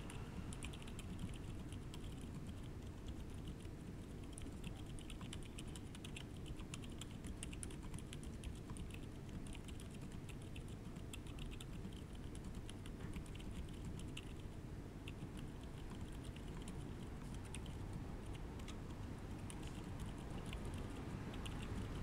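Steady, fast typing on a mechanical keyboard with stock 68g Outemu Silent Forest tactile silent switches, on a deskmat: dense, soft, damped keystrokes without click. A steady low background hum sits underneath, from the raised microphone gain.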